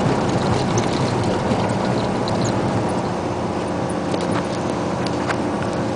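Isuzu Giga dump truck's diesel engine running steadily as it drives along a gravel road, its low hum mixed with tyre and road noise and scattered small clicks and rattles.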